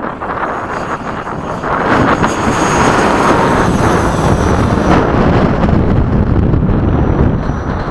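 Electric ducted-fan RC model jet (a Freewing 90mm F/A-18) flying, its fan rushing with a faint high whine, growing louder about two seconds in and easing off near the end, over wind noise on the microphone.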